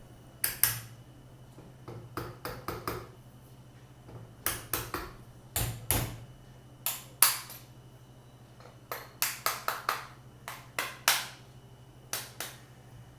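Metal parts of a 12-gauge double-barrel shotgun clicking and knocking together as the bottom plate is fitted to the receiver: short, sharp clicks in irregular clusters of two to five.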